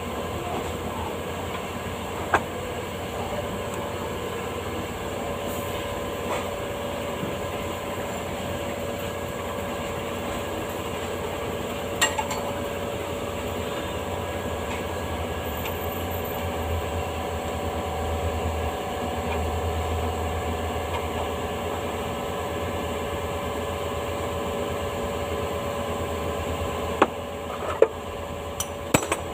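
Workshop noise under a vehicle on a lift: a steady machine hum, with a few sharp metal clinks from hand tools on the underside and a quick run of knocks near the end.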